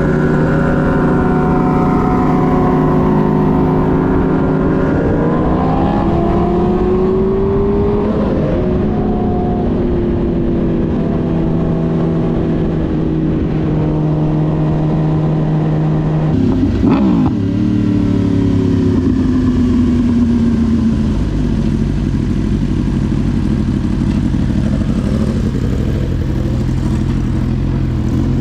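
A road vehicle's engine running loud under way. It holds steady revs, its pitch climbs twice about a fifth of the way in, then changes abruptly just past the middle and falls away over a few seconds before settling.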